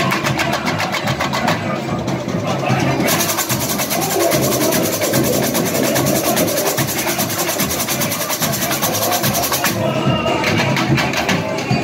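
Samba school bateria (drum section) playing a fast samba: deep surdo bass drums under a dense, even layer of chocalho jingle-shakers. The high jingling thins out briefly near the end.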